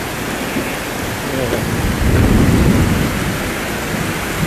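Heavy rain pouring steadily, with a low rumble of thunder swelling about two seconds in.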